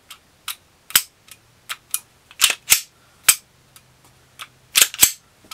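Smith & Wesson SD9VE pistol being dry-fired and reset over and over: about a dozen sharp metallic clicks, several in close pairs. The trigger reset feels weird with a Glock 17 barrel and the SD recoil spring fitted.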